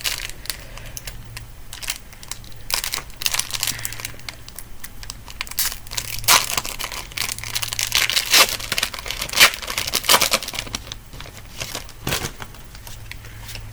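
Foil booster-pack wrapper of Pokémon trading cards crinkling and tearing as it is handled and opened, in irregular sharp crackles.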